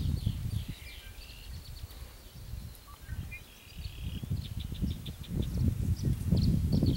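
Wind gusting over the microphone in a low rumble, strongest at the start and again in the second half, with small birds chirping and calling in the background.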